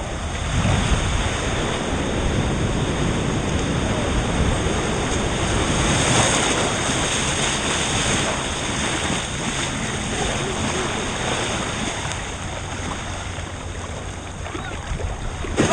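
Ocean surf washing and sloshing close around a dog-mounted GoPro in the water, a steady rush of noise with some wind on the microphone.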